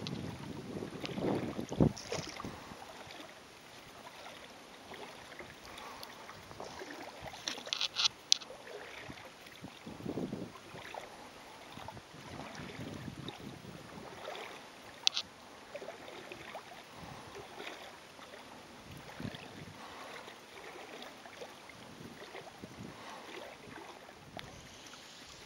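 Small waves lapping at the water's edge with light wind on the microphone, broken by a quick cluster of sharp clicks about eight seconds in and a single click around fifteen seconds.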